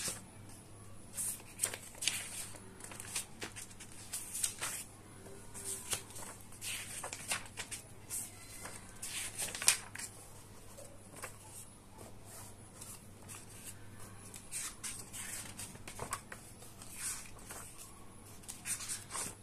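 Paper pages of a thick paperback book being turned and smoothed down by hand: a run of irregular short rustles and swishes, the loudest about ten seconds in.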